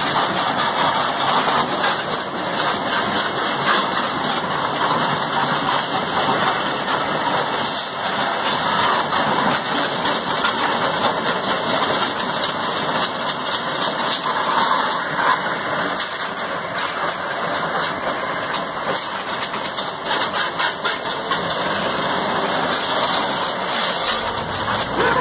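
Pressure washer running steadily: the hiss of its high-pressure water jet spraying onto a motorcycle, over the hum of its pump motor.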